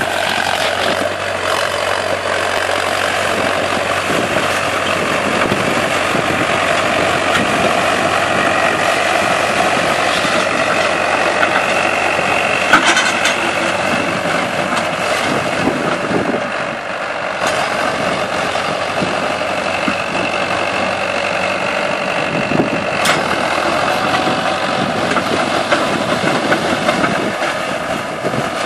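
Farmtrac 6055 tractor's diesel engine running steadily as it pulls a disc harrow through cut banana plant residue. Two short, sharp clicks stand out over the drone, one about halfway through and one near the end.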